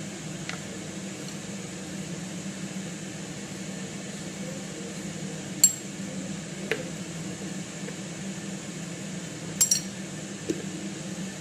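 Kitchenware clinking against a metal bowl while seasonings are added: a sharp clink about halfway and a quick double clink near the end, with a few fainter ticks, over a steady low hum.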